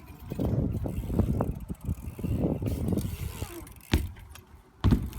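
BMX bike being ridden for tricks: an uneven low rumble of tyres and frame on the ground, then two sharp knocks about a second apart near the end.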